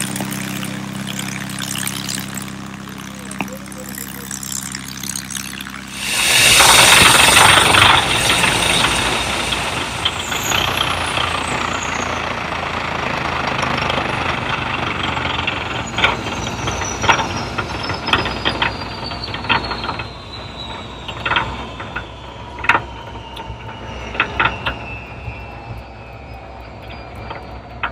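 Aircraft engine noise: a steady low engine hum, then a sudden loud jet rush about six seconds in, followed by a high whine gliding slowly down in pitch, with scattered sharp cracks later on.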